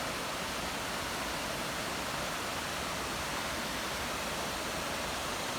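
Steady rush of creek water flowing over rocks, an even hiss with no change in loudness.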